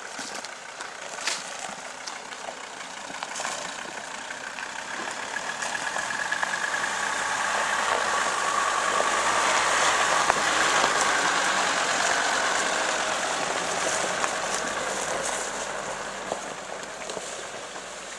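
Off-road SUV's engine running as it climbs a snowy dirt track, growing louder as it passes close by about halfway through, then fading as it drives away.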